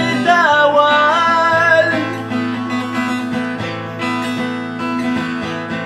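A man singing a Kabyle song to his own acoustic guitar: one long sung phrase that slides in pitch over the first two seconds, then the guitar playing on alone.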